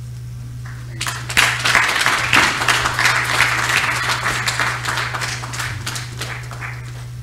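A crowd applauding, breaking out suddenly about a second in and gradually dying away near the end, over a steady low hum.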